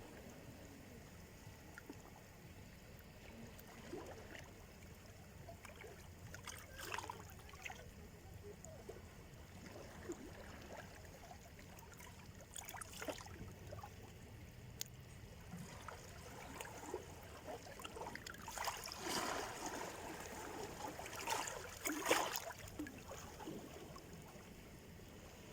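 Small sea waves washing in at the shore: a steady low rumble with scattered soft splashes, the biggest two close together near the end.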